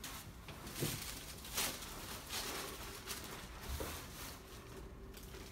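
Rustling and shuffling of clothing and table covering, with several soft bumps, as a person settles face down on a chiropractic treatment table.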